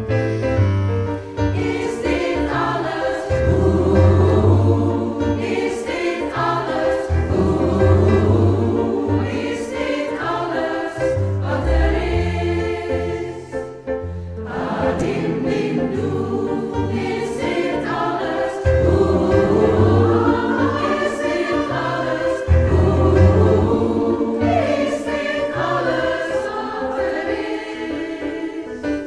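Large mixed choir singing an arrangement of a Dutch pop song, in phrases with brief breaths between them, accompanied on keyboard.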